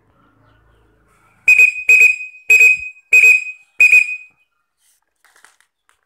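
A whistle blown in five short, loud blasts, each about half a second long and spaced evenly, on one steady high pitch with a slight trill.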